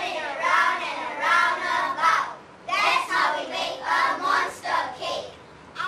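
A group of young children singing together in unison, in two phrases with a short break between them.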